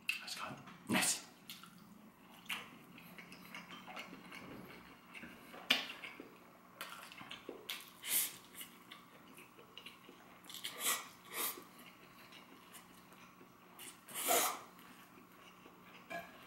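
A person eating fried instant noodles: short wet slurps and chewing sounds, spaced a few seconds apart, with the loudest about fourteen seconds in.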